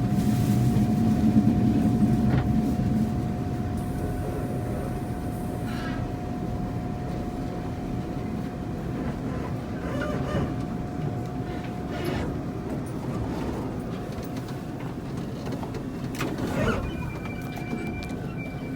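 Tze-Chiang express train rolling into a station and slowing, with a low rumble that eases after the first few seconds and a steady whine that stops about two-thirds of the way through, plus scattered knocks. Near the end a thin high tone starts.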